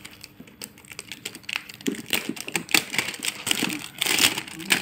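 Hands handling and picking open a cardboard smartphone box: a run of small irregular clicks and taps of fingers on the box, with a brief scraping rush about four seconds in.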